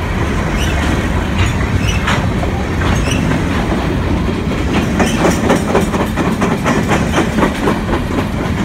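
Freight train cars rolling past close by: a steady rumble of steel wheels on rail with a repeated clickety-clack as the wheels cross rail joints, the clicks coming more often from about five seconds in.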